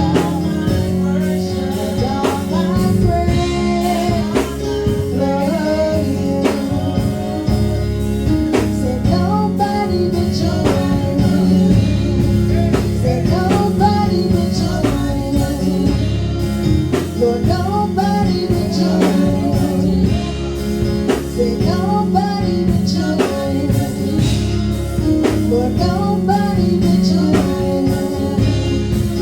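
Live gospel worship music: a band with drums and guitar playing steadily, with a voice singing a wavering melody over it.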